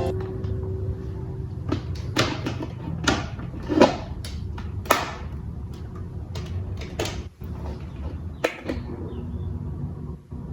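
Irregular sharp clicks and knocks of fan parts being handled and fitted while the fan is reassembled, over a low steady hum.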